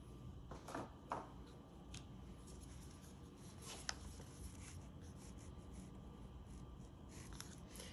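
Faint handling sounds of paint cups and a stir stick: a few soft clicks and light scrapes over quiet room tone. The sharpest clicks come about a second in and again near the four-second mark.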